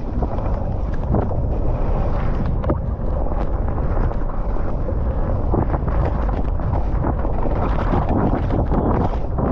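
Wind rushing over a helmet-mounted camera's microphone on a fast downhill mountain bike descent, mixed with the frequent knocks and rattle of the bike and its tyres on a wet, muddy track.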